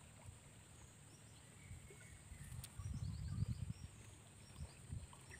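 Quiet outdoor ambience with a steady high-pitched insect drone and faint bird chirps about three to five seconds in. A low wind rumble on the microphone swells around three seconds in.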